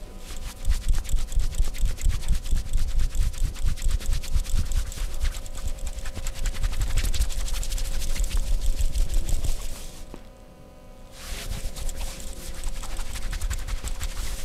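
Hands working skin in a fast, rhythmic percussive massage, several slapping strokes a second. The strokes stop for about a second near the end, then start again.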